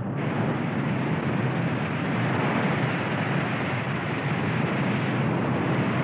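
A loud, steady rumble: an even noise with no tone in it, heaviest in the low end, of the kind laid over footage of the earth's restless forces.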